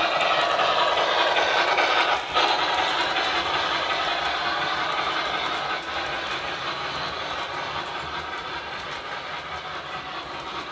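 O scale model freight train rolling past, its metal wheels running on the track in a steady rumble that is loudest in the first couple of seconds and then slowly fades.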